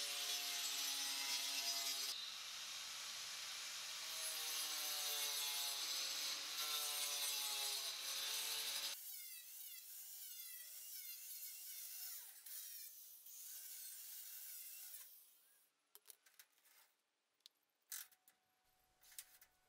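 Angle grinder with a masonry blade cutting cement board: a loud, gritty cut over the motor's whine, its pitch shifting under load, for about nine seconds. Then it stops, leaving quieter, lighter noise and a few scattered clicks.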